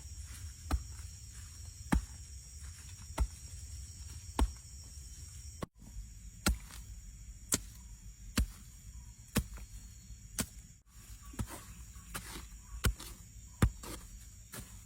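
Sharp knocks, about one a second, from work on the campsite, over a steady high-pitched drone.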